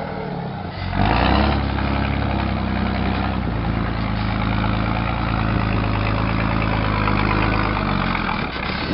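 Diesel engine of a loaded Mercedes-Benz 1621 tandem-axle dump truck pulling slowly along a muddy dirt road. The engine note steps up under load about a second in, holds steady, and eases off near the end.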